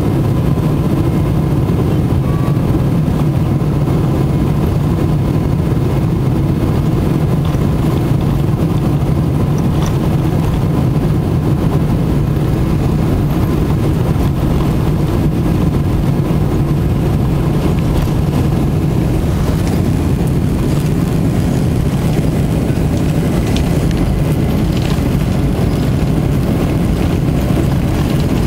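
Steady engine hum and rumble heard inside the cabin of a Boeing 747 as it taxis, with no change in pitch or level.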